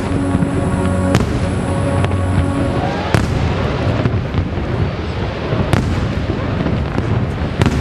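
Aerial firework shells bursting in sharp bangs about two seconds apart, with a continuous crackling haze between them. Music plays under the first three seconds, then fades.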